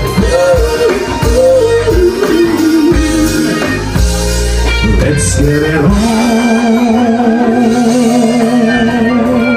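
Live band playing: a woman singing over electric guitar, bass and drums. About six seconds in she holds one long note with vibrato to near the end while the bass and drums drop back.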